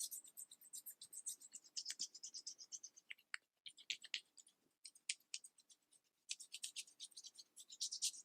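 Soft, close-up ASMR crackling: dense runs of quick, sharp, high-pitched crackles, broken by two brief pauses about three and a half and six seconds in.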